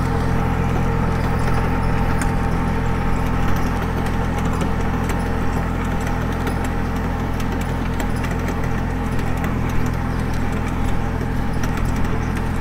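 Kubota B2440 compact tractor's three-cylinder diesel engine running steadily under load as it pulls a cultivator through the soil, with scattered light clicks and rattles.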